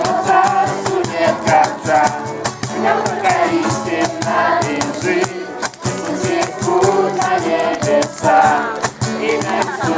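Music: voices singing to a rattle shaken in a fast, steady rhythm.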